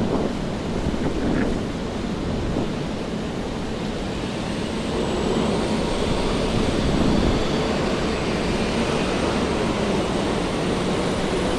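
Steady rain and wet city-street noise, with an engine's whine coming up over it about halfway through and slowly rising.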